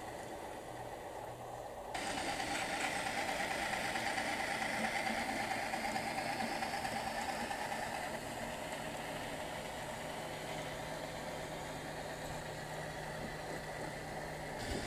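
HO-scale model diesel switcher's onboard sound system playing a diesel engine running. It grows louder about two seconds in, with a higher note, and eases to a steadier, lower hum from about the middle on.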